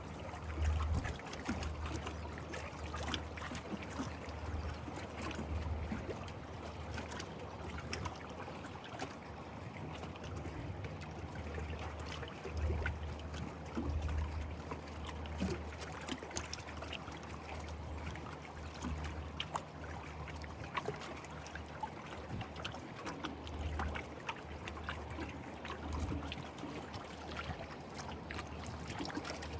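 Small waves of Lake Ashi lapping along the shore, a steady watery wash with many small splashes, over a low rumble that swells and fades.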